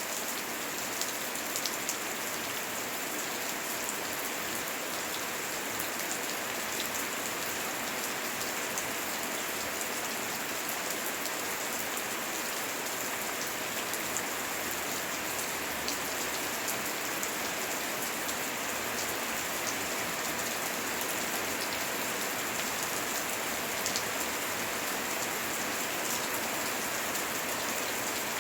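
Heavy rain falling steadily, with individual drops ticking sharply all through it; no thunder.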